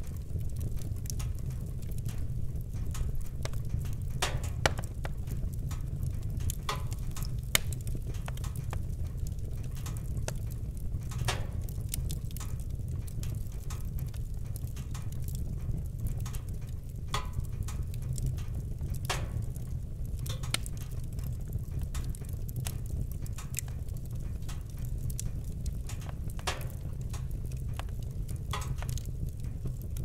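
Wood fire crackling: irregular small pops and ticks over a steady low rumble of burning, with a handful of louder snaps spread through.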